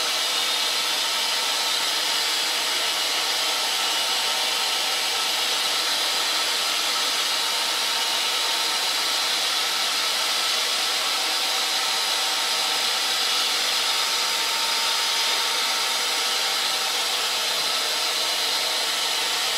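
Grizzly G0752 metal lathe running steadily under automatic control, its spindle turning while the carriage takes roughing passes along the part: an even, unbroken whir.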